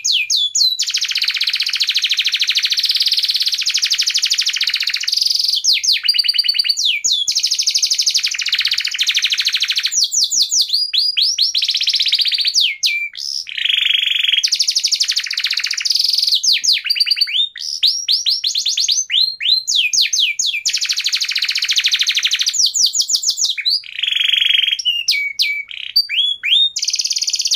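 A bird singing a long, loud song of rapid down-sweeping whistled notes in quick series, alternating with buzzy trills, over and over without pause.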